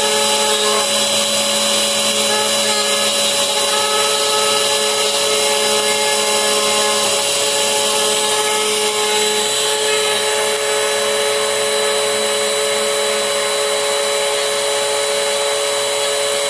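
Spindle of a 3040 desktop CNC router running with a steady whine as its bit mills into a wooden board, over the steady rush of a dust-extraction vacuum.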